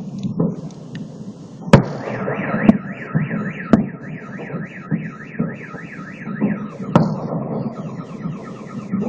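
Fireworks salute shells bursting with sharp, echoing bangs, several seconds apart. A car alarm wails alongside in a fast up-and-down tone, about three sweeps a second, then changes to a different warbling pattern near the end.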